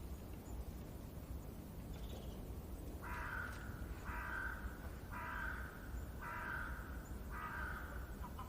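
A bird giving five calls about a second apart, starting about three seconds in, over a steady low rumble.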